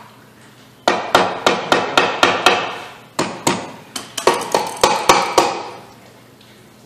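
Red plastic mallet tapping on a Kawasaki KX250 two-stroke engine's aluminium crankcase halves as a case splitter pulls them apart. The taps come in two quick runs of about four a second with a short pause between, meant to free the case halves that are still sticking at the back.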